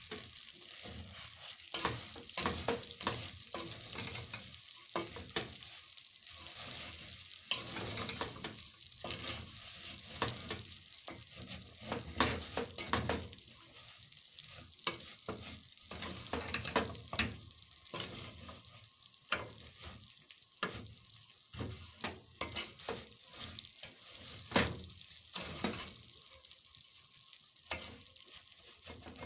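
Rice being stirred through meat and spices frying in a hot pot: irregular scraping strokes of the stirring utensil over a steady sizzle.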